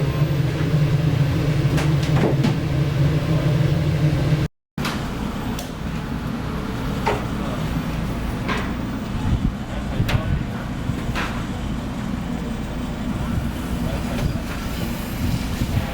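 A steady low mechanical hum that cuts off abruptly about four and a half seconds in. It gives way to steady kitchen noise with scattered sharp clicks and knocks.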